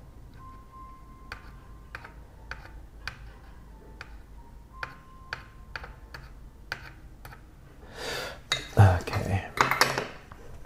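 Small scattered clicks and taps of a soldering iron tip and tools against a circuit board while old LCD contact traces are cleaned up with flux and solder. Near the end come a few louder breathy voice noises.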